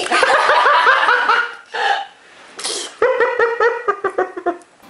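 Laughter in two runs of quick, repeated high-pitched "ha-ha" pulses, with a short hissy burst of breath between them.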